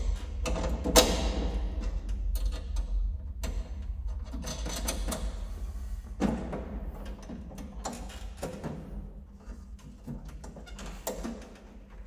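Irregular knocks, clicks and scrapes of hand work on lugged power-cable cores and a screwdriver at an isolator switch inside a metal enclosure, the loudest knock about a second in. Underneath is a steady low hum.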